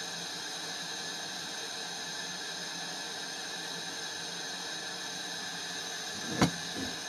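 Propane-oxygen glassworking torch hissing steadily while it heats a glass marble in the flame. About six seconds in there is one sharp knock, with a fainter one just after.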